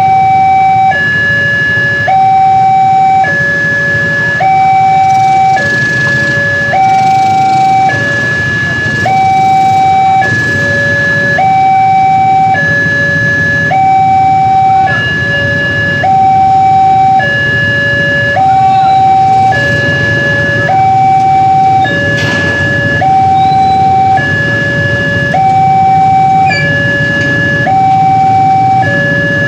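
Railroad level-crossing warning signal played through a loudspeaker horn: an electronic two-tone alarm switching between a high and a low note about every three-quarters of a second. It warns that a train is approaching and the crossing is closed.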